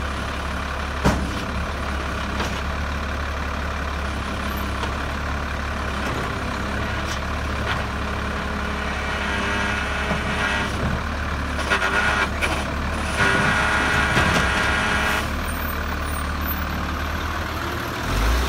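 Autocar WXLL garbage truck running at idle while its Labrie Minimax side-loader arm works a cart, with a sharp knock about a second in and, in the second half, hydraulic whine and several clanks as the cart is lifted and dumped. Near the end the engine revs as the truck pulls forward.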